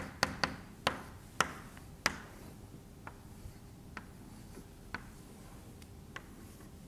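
Chalk tapping and knocking against a blackboard as a diagram is drawn: a quick run of sharp taps in the first two seconds, the loudest about two seconds in, then sparser, fainter taps.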